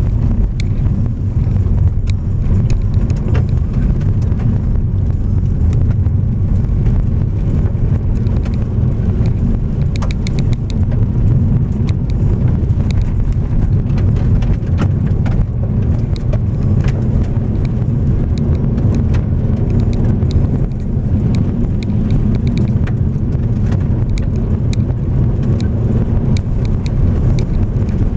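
Car driving on a gravel road: a steady low rumble of tyres and engine, with scattered clicks of loose stones pinging off the car.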